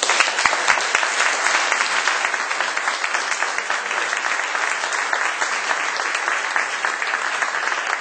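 Audience applauding, starting abruptly and keeping up steadily.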